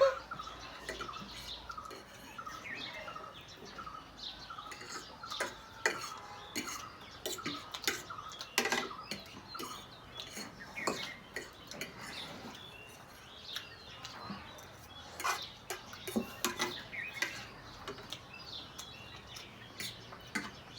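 Spoons and forks clinking and scraping against plates and bowls while people eat, in scattered sharp clicks. Birds chirp faintly in the background.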